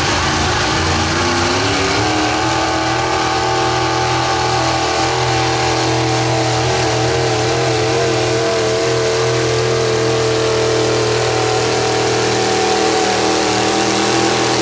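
Modified gasoline 4x4 pickup's engine running hard at high revs through open hood stacks while pulling a weight sled. The pitch climbs over the first two seconds, then holds high and steady with a slight waver.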